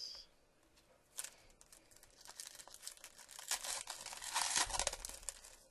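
A baseball card pack's foil wrapper crinkling as it is torn open and handled: a light crackle that grows louder about two seconds in and dies away near the end.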